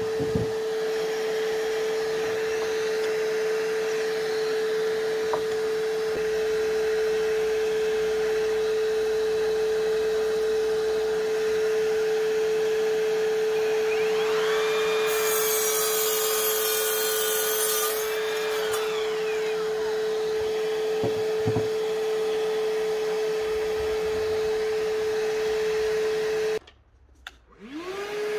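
Evolution 18V cordless wet and dry vacuum running steadily as dust extraction for a miter saw, with a steady hum. About halfway through, an Evolution 36V cordless miter saw spins up, cuts through heavy timber for about three seconds and winds down. Near the end the vacuum cuts out briefly and comes back rising in pitch.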